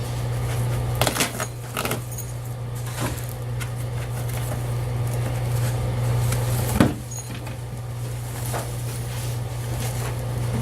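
Scattered knocks and clatters from work on the camper's old floor, a few seconds apart, the loudest about seven seconds in, over a steady low hum.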